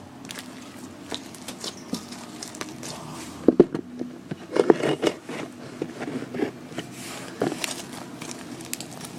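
Slime being mixed and kneaded by hand, making irregular sticky crackles and small squishes, with a few louder squishes about halfway through.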